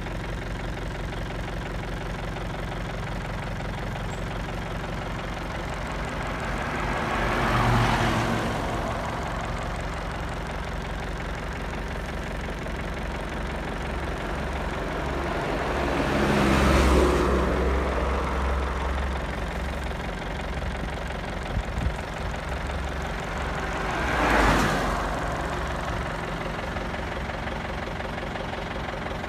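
A vehicle engine idling steadily, while three other vehicles pass by on the road, each swelling up and fading away over a few seconds; the middle pass is the loudest and deepest.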